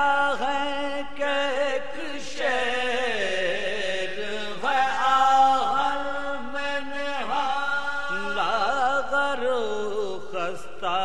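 A male voice reciting a marsiya in soz style, chanting a slow, ornamented melody in phrases of long held, wavering notes.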